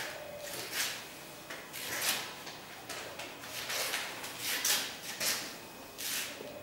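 Marker pen writing on a whiteboard: a series of short hissing strokes, roughly one a second.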